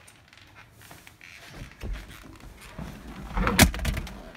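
Handling noise of someone climbing into a car's driver's seat: rustling, low bumps and scattered knocks, with one sharp loud knock about three and a half seconds in.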